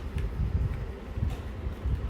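Gusty low rumble of wind buffeting the microphone, with a few faint clicks.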